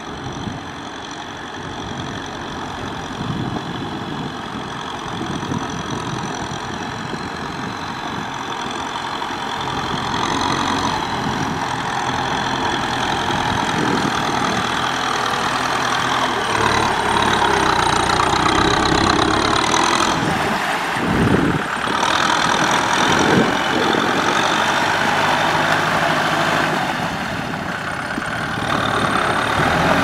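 Farm tractor's diesel engine running under load as it pushes through a flooded, muddy rice paddy, its engine speed rising and falling.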